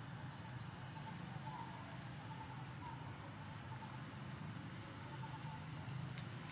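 A steady, high-pitched insect drone with faint pulsing chirps beneath it, over a low background hum.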